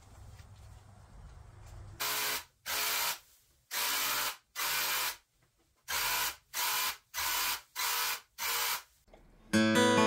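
Paint being sprayed in about nine short hissing bursts, each about half a second long, as a white coat of paint goes onto a plywood cabinet. Strummed acoustic guitar music comes in near the end and is louder than the spraying.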